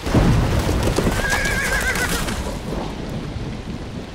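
Horse hoofbeats, irregular heavy knocks that start suddenly, and a horse whinnying for about a second in the middle, a wavering high call.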